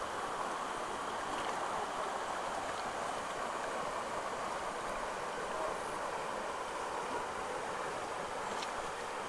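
Shallow stream flowing over a stony riffle: a steady rush of water.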